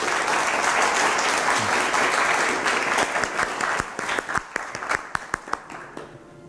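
Audience applauding: a full burst of clapping that thins after about three seconds into scattered single claps and dies away near the end.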